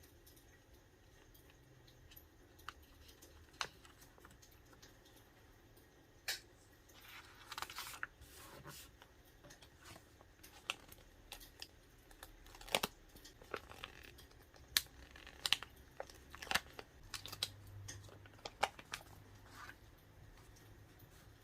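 Quiet paper and sticker handling: sticker sheets rustling and peeling, with scattered light clicks and taps as stickers are pressed onto a notebook, and a longer rustle about seven seconds in.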